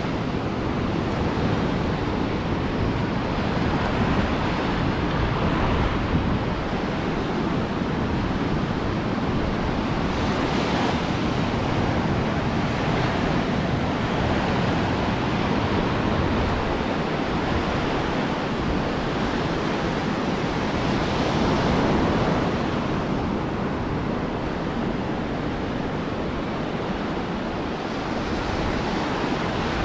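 Ocean surf breaking on a beach: a steady rush of waves that swells a little louder about ten seconds in and again just past twenty seconds.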